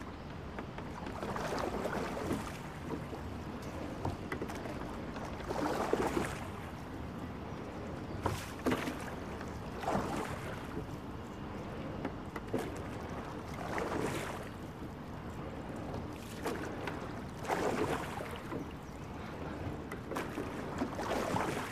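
Sculling oars splashing and swishing through the water in repeated strokes, a surge of splash every few seconds, over a steady wash of water and wind noise.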